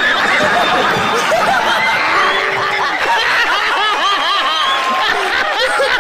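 A group of people laughing together, many voices overlapping without a break.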